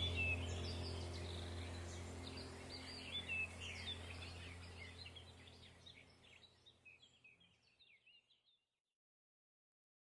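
Wild birds chirping and trilling over a low steady hum, the whole fading out to silence about six seconds in.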